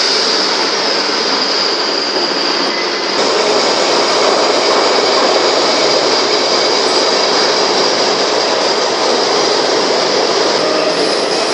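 Loud, steady running noise of workshop machinery, with a constant high whine over it; it grows a little louder and fuller about three seconds in.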